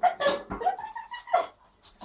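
Puppy whining in a run of short, high-pitched calls, some rising and then held.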